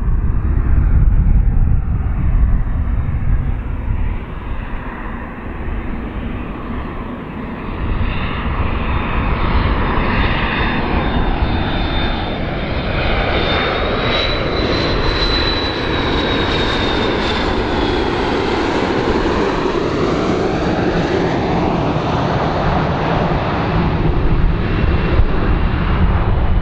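McDonnell Douglas MD-80-series airliner on landing approach, its rear-mounted Pratt & Whitney JT8D turbofans giving a steady jet rumble as it flies past close by. A high engine whine rises a little and then falls about halfway through as the plane goes by.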